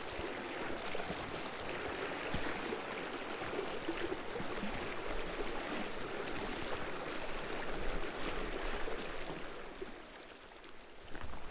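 River water running, a steady rushing that fades down near the end.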